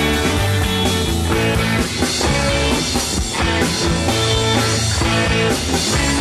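Rock and roll song playing an instrumental passage, with electric guitar and drums and no singing.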